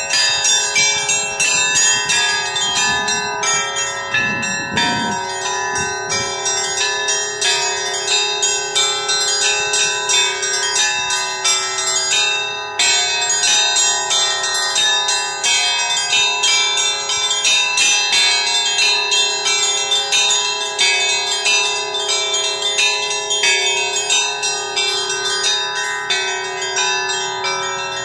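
Orthodox church bells on a mobile belfry rung in a continuous rapid peal, several strikes a second, with a steady lower bell tone ringing on underneath.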